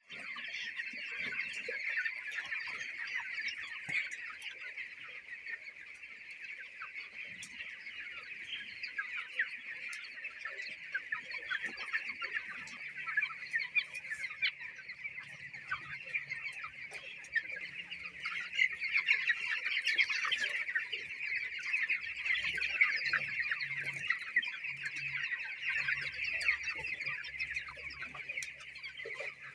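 A flock of young chickens peeping and cheeping continuously, many birds calling over one another. The birds have a breathing problem.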